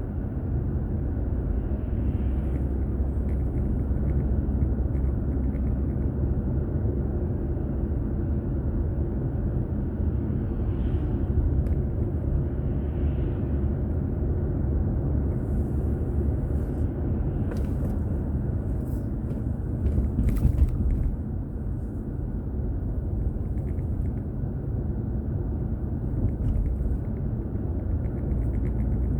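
Car driving, recorded from inside the cabin by a dashcam: a steady low rumble of road and engine noise. A few light clicks and a bump come about two-thirds of the way through.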